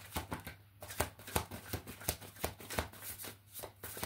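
A thick deck of cards shuffled by hand: a run of soft, irregular flicks and clicks as the cards slide and tap together.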